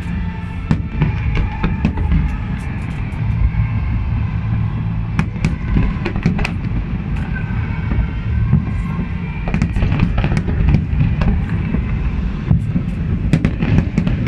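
Aerial fireworks bursting: many sharp cracks and pops at irregular intervals, thickening about nine seconds in and again near the end, over a steady low rumble.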